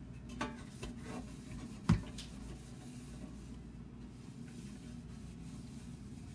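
A towel rubbing over a small roasting pan as it is dried by hand, with a few light knocks and one sharp knock about two seconds in, over a steady low hum.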